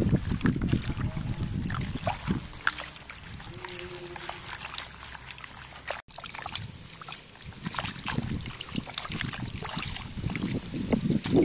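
Hands swishing and squeezing leaves in a plastic basin of water: water sloshing and splashing with many small splashes and drips. The splashing grows busier in the last few seconds.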